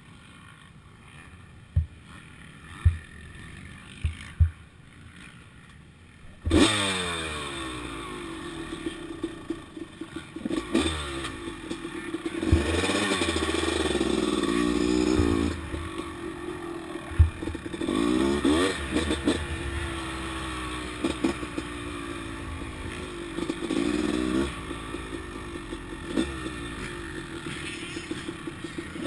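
1997 Honda CR250R's 250 cc two-stroke single-cylinder engine, heard from the bike's handlebar-mounted camera. After a few sharp knocks, it fires about six seconds in, then runs and is revved up and down several times, settling between blips.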